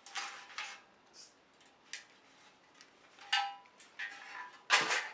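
Used small-engine parts being handled and set down: a few short metallic clinks and clatters, one with a brief ring.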